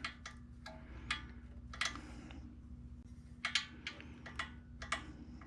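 Scattered light clicks and taps of hand tools on the Honda GX190 engine's open valve train as a stuck valve is worked on, at irregular spacing over a faint steady hum.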